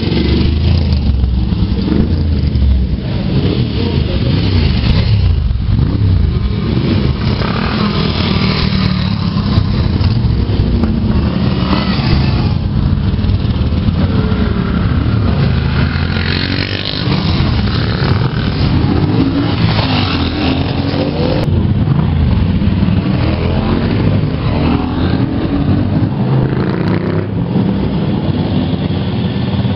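Historic motorcycles riding past one after another, their engines running loud and revving up and falling in pitch as each goes by.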